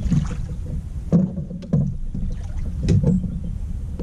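Wind rumbling on the microphone, with a few dull knocks and clunks against a plastic fishing kayak about a second in, near two seconds and around three seconds, as a landing net and a small bass are handled at the boat's side.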